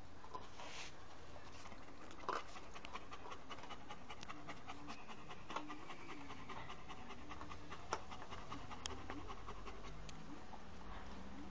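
A dog panting steadily, with a few sharp clicks.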